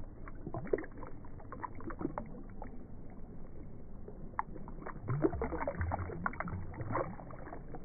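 Slowed-down water splashing and dripping as a hand lowers a bass into shallow water and lets it go. The loudest splashes come about five to seven seconds in, when the fish kicks free.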